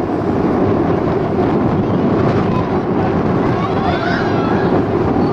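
Wind buffeting the camera microphone: a loud, steady, fluttering rumble with no break.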